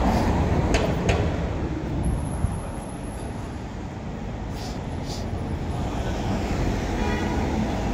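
Street traffic: a motor vehicle passes close by, a low rumble that eases off over the first two or three seconds, leaving a steady traffic hum with a few light clicks.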